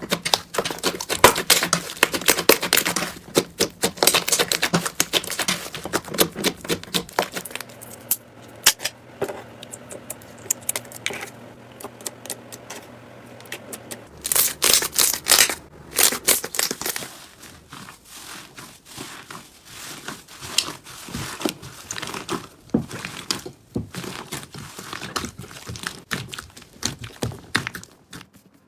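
Slime being squeezed, poked and stretched by hand, making a dense run of sticky clicks, pops and crackles. It eases off for a few seconds in the middle, then returns with a loud cluster of crackles.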